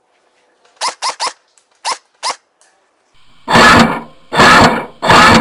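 Five sharp, irregular cracks, typical of airsoft BBs striking cover, followed about three seconds in by three very loud, heavy stabs of about half a second each, which lead into electric-guitar music laid over the edit.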